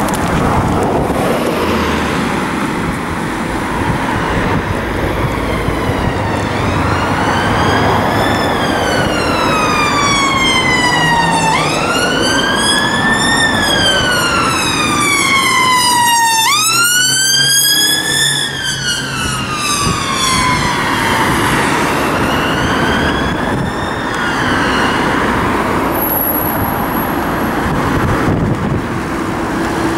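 Emergency vehicle siren on the wail tone, sweeping slowly up and down every few seconds over street traffic noise. It grows louder toward the middle, with quick rises and slow falls, then fades away.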